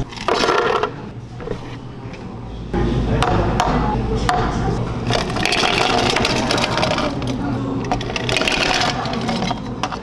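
Ice cubes scooped with a metal scoop and clattering into plastic cups, a dense rattling run over a low steady hum that starts a few seconds in.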